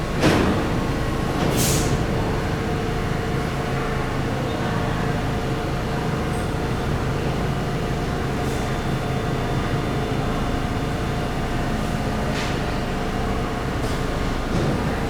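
New York City subway train running steadily, with a faint steady whine over the rumble and short hisses of air near the start and again late on.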